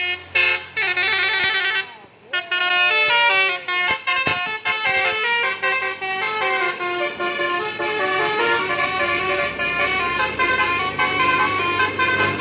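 Indonesian telolet bus horn, a manually played Basuri multi-tone horn, sounding a fast melody of stepped notes with several tones at once. It breaks off briefly about two and four seconds in, and a few sliding tones come early on.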